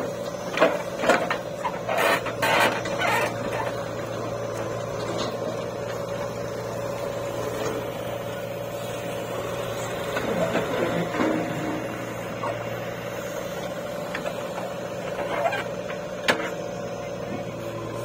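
JCB 3DX backhoe loader's diesel engine running steadily under working load, with knocks and clanks from the bucket and arm in the first few seconds and again near the end. About ten seconds in, the bucket dumps a load of soil into a steel tractor trolley.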